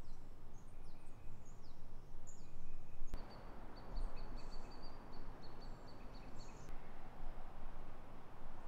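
Forest ambience of steady outdoor noise with small birds calling: scattered thin high chirps, then a fast run of repeated high notes for a few seconds through the middle.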